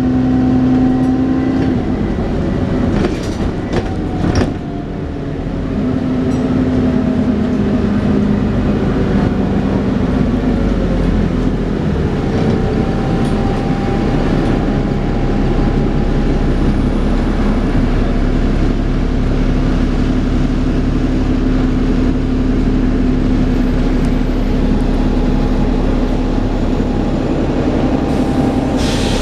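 Dennis Trident 2 double-decker bus under way, heard on board: a steady drone and the whining 'hoover' tone of its driveline. It eases off with a few knocks about three to four seconds in, then the whine climbs slowly in pitch as it pulls away again.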